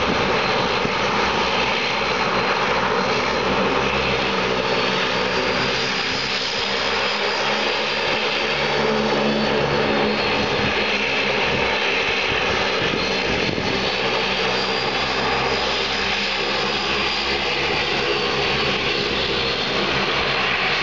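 A Dash 8-Q400's two Pratt & Whitney Canada PW150A turboprop engines running with the propellers turning as the aircraft taxis. The sound is a steady, loud drone with a thin high whine that drifts slowly up and down in pitch.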